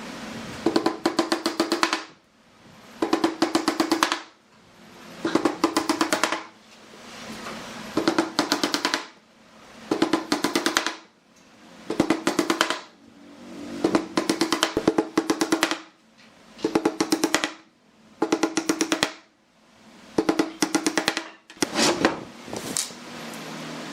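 A power tool working in repeated bursts of about a second, one every two seconds, each burst a fast run of sharp clicks over a steady hum.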